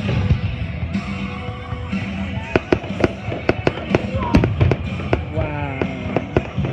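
Fireworks going off: a rapid run of sharp pops and crackles that thickens about two and a half seconds in, over music playing in the background.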